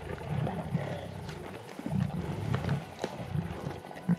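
Several lions growling in low, repeated bouts while they feed together on a zebra foal carcass, competing for the meat. A few sharp cracks sound among the growls.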